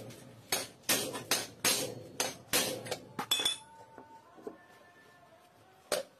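Hammer blows on metal, a steady run of sharp strikes at about three a second that stops about three and a half seconds in, then one more blow near the end.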